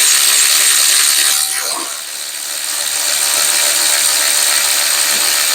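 Cordless electric ratchet running with a 13 mm deep socket on a swivel, working a bolt. It eases off briefly about two seconds in, then runs steadily.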